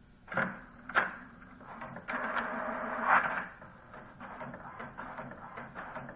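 HP DeskJet 2700-series inkjet printer mechanism starting a print job: two sharp clicks in the first second, then a motor whirring for about a second and a half, then quieter rapid clicking and whirring.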